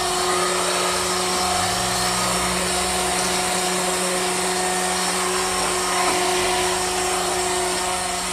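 Handheld electric fuel-transfer pump whirring steadily as it pumps diesel into a combine harvester's tank.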